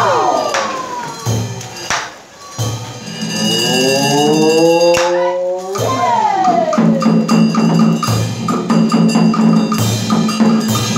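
Traditional Vietnamese water puppet music: a melody with sliding, bending notes over sharp percussion strikes, with a steady low drone from about the middle on.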